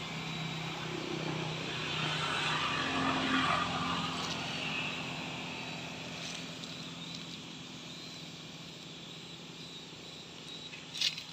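Motorbike engine passing on the road, growing louder over the first few seconds and then slowly fading away.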